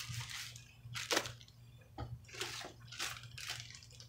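Rustling and handling sounds as objects are moved and picked up off a table, with a couple of soft knocks about one and two seconds in, under a steady low hum.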